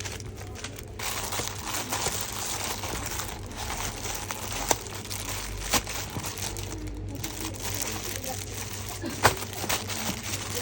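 Packaging crinkling and rustling as a carton of paper is unpacked, with three sharp snaps, the loudest near the end.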